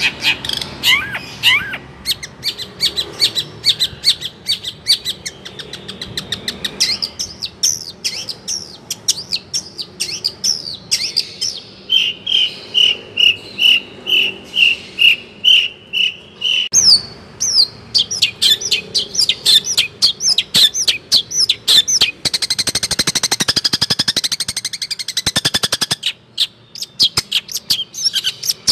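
A songbird singing a long, varied song of rapid chirps and trills. Partway through it repeats one note evenly about twice a second for a few seconds. Near the end it breaks into a dense, very fast trill.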